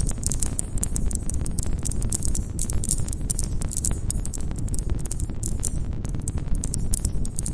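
Wood campfire burning, with a steady low rumble of flames and many sharp crackles and pops from the burning logs.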